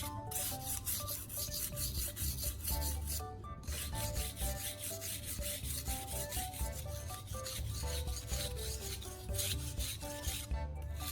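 Steel knife blade stroked quickly back and forth on the wet 1000-grit side of a whetstone under a baking-soda paste, a steady rasping scrape that pauses briefly about three seconds in and again near the end. Light background music plays underneath.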